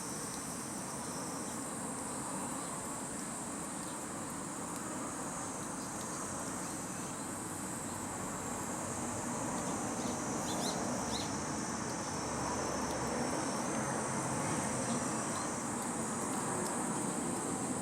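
Steady, continuous high-pitched buzzing drone of insects in summer, with a few faint short high chirps about ten seconds in.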